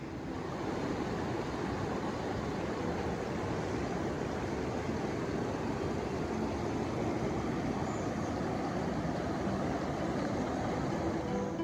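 Swollen, muddy stream rushing steadily over rocks, a constant noise of fast-flowing water.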